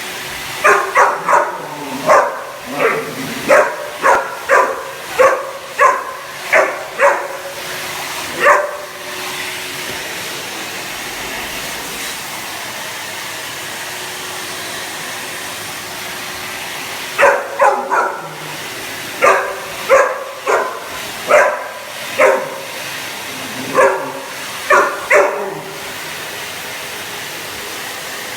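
Cane Corso barking repeatedly at a running vacuum cleaner: one run of about a dozen barks, a pause of several seconds with only the vacuum's steady drone, then a second run of barks near the end.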